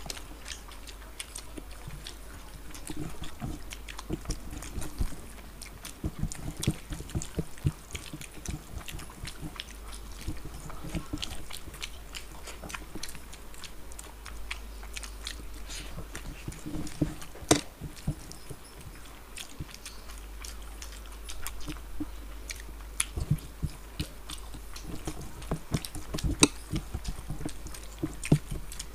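Two people eating rice and curry with their hands, close to a table microphone: chewing and many irregular short clicks of mouths and fingers, with one sharper click about seventeen seconds in.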